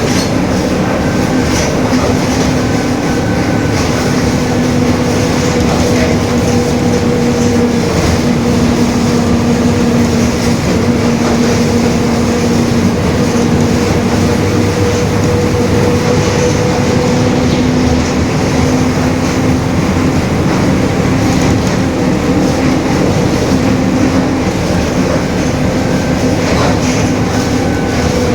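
Mercedes-Benz OF-1721 city bus under way, with a steady drone from its differential at a near-constant pitch that drifts slightly up and down, over the running noise of the bus.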